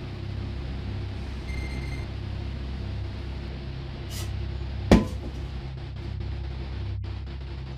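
A steady low hum, with a single sharp knock just before five seconds in and a brief hiss shortly before it.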